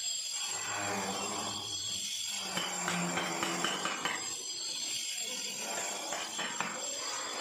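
Hammer striking a steel chisel driven under the edge of a floor tile to pry it up from its mortar bed: a series of short metallic taps and knocks.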